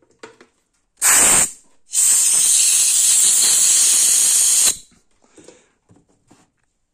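Aerosol degreaser spray hissing in a short burst, then a longer spray of nearly three seconds, used to degrease the chainsaw's bar-stud fitting before the stud goes in.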